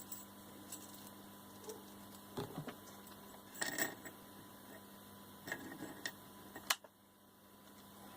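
Scattered light clicks, small knocks and brief rattles of objects being handled, over a faint steady electrical hum, with the sharpest click near the end.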